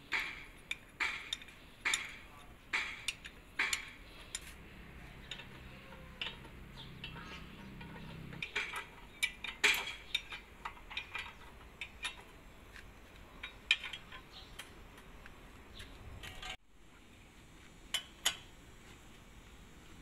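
A steel wrench clinking against the track roller mounting bolts of a Komatsu D85SS bulldozer undercarriage as they are fitted and tightened. Sharp metal clinks come about once a second at first, then in a quicker scatter.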